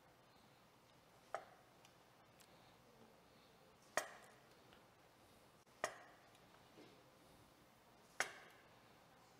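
Knife chopping jiló (small bitter eggplants) into quarters on a plastic cutting board: four sharp knocks of the blade meeting the board, about two seconds apart.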